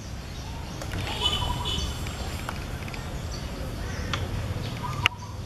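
Outdoor background with a steady low rumble, a few short high chirps a second or so in, and a sharp click near the end.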